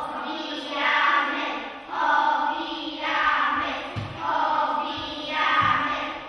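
Group of young girls singing a song together in unison, in short phrases that start again about every second.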